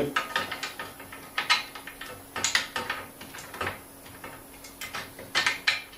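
Irregular light clicks and taps of small mounting fittings being handled and pushed into place on a chandelier's glass wing, as a spacer is popped in.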